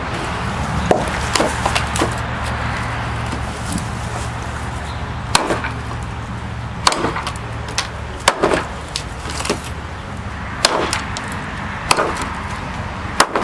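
Large chopping knife biting into a log, repeated sharp chops at an uneven pace of roughly one a second, knocking wood chips loose.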